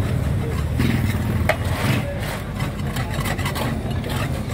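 Steady low rumble from the handmade ice-cream setup, with light scraping and a knock or two as the vendor works the inside of the metal ice-cream pot.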